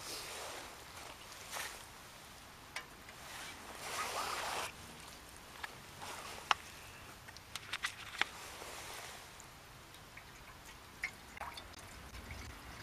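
Small wood-burning camp stove burning: soft rushing of the flames, louder twice, with scattered sharp crackles and pops of burning fuel.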